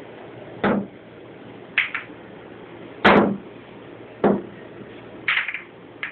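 Billiard balls clacking together and knocking on the pool table as kittens bat them about: about seven sharp clacks, some in quick pairs, the loudest about three seconds in.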